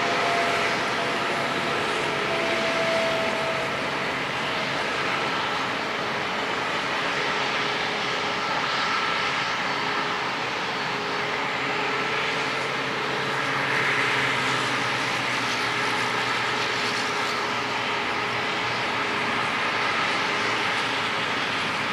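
Boeing 747-400F's four jet engines running, a steady rush of noise with faint whining tones that shift a little in pitch.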